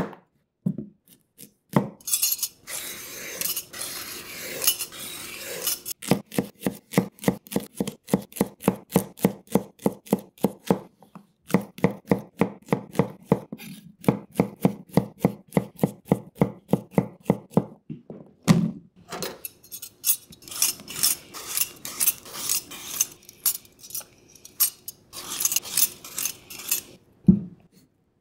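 Chef's knife cutting carrot on a cutting board: long runs of quick, even strokes, about four a second, broken by short pauses and by stretches of crisp hiss.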